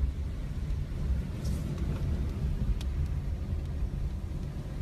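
Low, steady rumble of a car driving, heard from inside the cabin, with a brief swish about a second and a half in and a faint tick shortly after.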